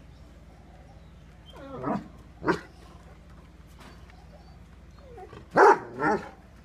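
Big dogs, a Great Dane and a Rottweiler, barking. There are two barks about two seconds in, the first sliding down in pitch, then two louder barks near the end.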